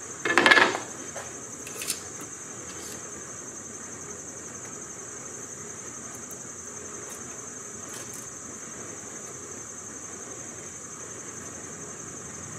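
Steady high-pitched chirring of insects, with a short scraping knock about half a second in as a wooden board is handled on the workbench, and a faint click about a second later.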